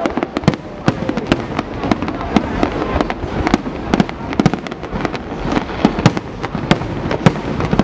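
Aerial fireworks display: many shells bursting overhead in quick succession, sharp irregular bangs several a second over a continuous rumble and crackle.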